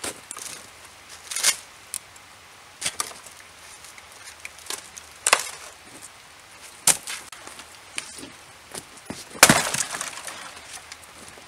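Dry dead branches snapping and splintering as they are broken off a fallen tree: a series of sharp cracks a second or more apart, with smaller snaps between them. The loudest and longest crack comes near the end.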